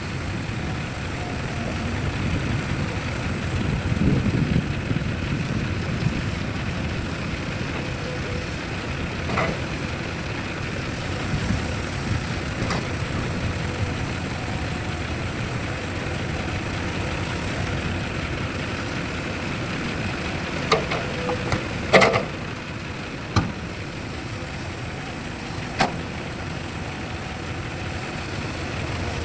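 Heavy diesel machinery running steadily, with about half a dozen sharp metallic knocks scattered through it, the loudest past the middle.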